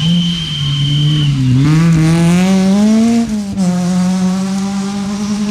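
Honda Civic Type R rally car's four-cylinder engine dips, then revs up hard out of a corner and shifts up a little past three seconds. After the shift it pulls on at steady revs as the car moves away. A thin steady high tone sounds over the first second or so.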